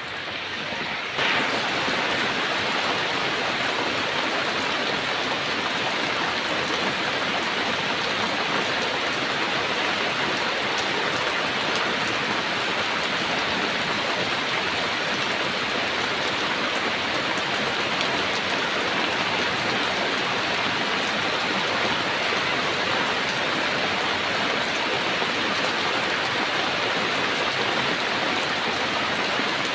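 Heavy rain falling steadily, a dense even hiss with no breaks. It gets abruptly louder about a second in, then holds steady.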